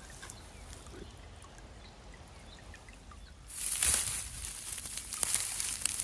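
Quiet outdoors, then about three and a half seconds in a sudden crisp rustling and crackling of dry, dead fern fronds as a gloved hand pushes through them to reach ostrich fern fiddleheads.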